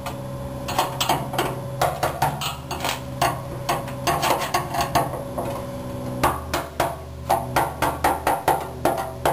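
Hammer tapping a screwdriver against the steel locking ring of a gas tank's fuel sending unit, driving the ring around until it seats. The metal-on-metal taps come every half second or so, then faster, about three or four a second, over the last few seconds, over a steady low hum.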